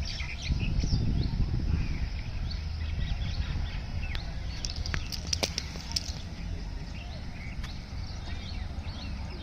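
Many small birds chirping and calling in short, scattered notes over a low, steady rumble, with a few sharp clicks about five to six seconds in.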